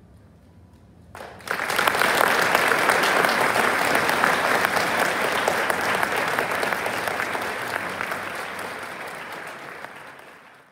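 Audience applause bursting out about a second in as the piece ends, then slowly tapering off.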